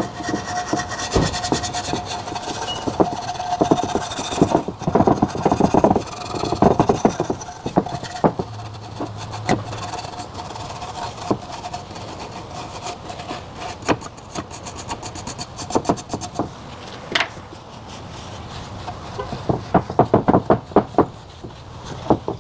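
Wire brush scrubbing the valve cover's gasket sealing surface in short rasping strokes, dense at first, sparser through the middle, then a quick run of strokes near the end.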